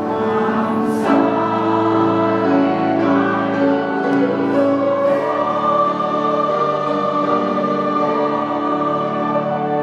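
A church choir of retired elders singing a hymn in several voices, holding long sustained notes, with one chord held steadily through the last few seconds.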